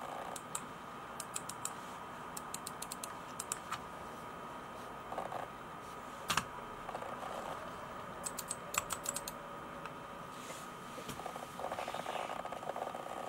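Runs of short, light plastic clicks from the Micronics MANIC KM330 wireless slim mouse and keyboard as buttons and keys are pressed and the mouse is handled, with one louder knock about six seconds in and a quick flurry of clicks near the end. A faint steady high whine sits underneath.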